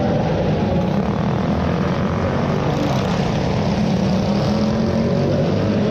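Pull-start minibike's small engine running steadily under way, a loud, even drone, with other minibike engines mixed in.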